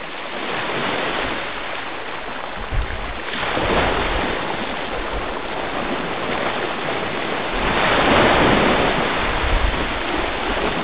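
Sea waves washing in, a steady rushing wash that swells up twice, a few seconds in and again near the end.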